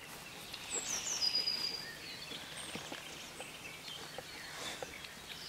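Faint background noise with a thin, high bird call about a second in that glides down and then holds steady, and a few faint ticks.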